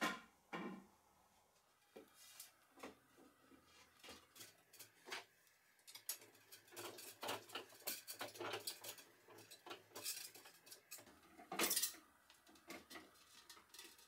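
Faint metallic clicks and scrapes of a hex key turning a confirmat screw into the end of a wooden rod, with light handling taps on the wood. There is a louder scrape about two-thirds of the way through.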